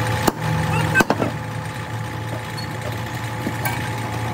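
An engine idling steadily, with a few sharp knocks about a third of a second in and again about a second in.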